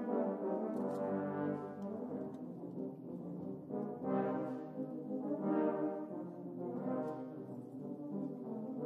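Background music of slow, sustained brass-like notes that swell and fade every second or two.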